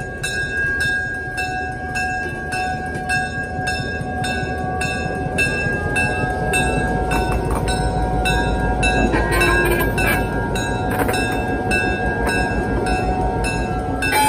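EMD GP7 diesel-electric locomotive moving slowly at low throttle, its 16-cylinder two-stroke diesel engine rumbling and growing louder about halfway through as it draws level, while its bell rings steadily at about three strokes a second.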